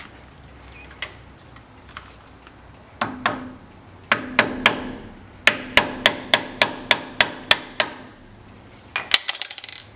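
Hammer tapping on steel hub studs to loosen the split cone washers on a front wheel hub: a few scattered strikes, then a steady run of about three ringing metal taps a second, ending in a quick clatter near the end.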